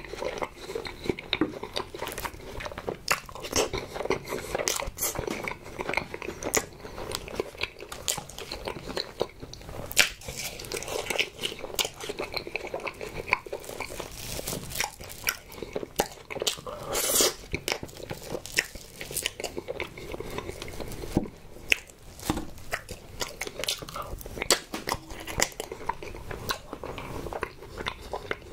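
Close-miked chewing and mouth sounds of a person eating a strawberry ice pop and strawberry crepe cake: wet smacking and many small irregular clicks and crunches.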